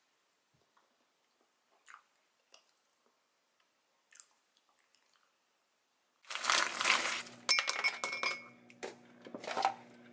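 Faint scattered clicks of a spoon against a bowl at first. Then, about six seconds in, frozen shrimp rattle and clink loudly into and against a glass mug, with a ringing glassy clink in the middle.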